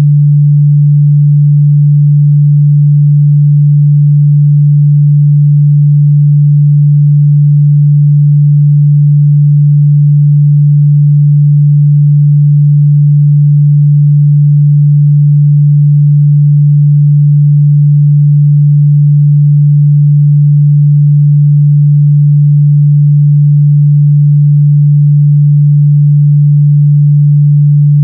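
A steady, loud 146 Hz sine-wave test tone, one pure low hum held without change.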